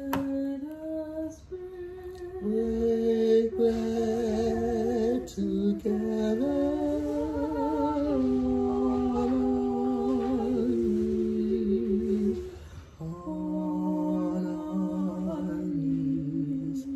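A man's voice humming a slow tune in long held notes that waver with vibrato and step from pitch to pitch, with a short break between phrases about two-thirds of the way through.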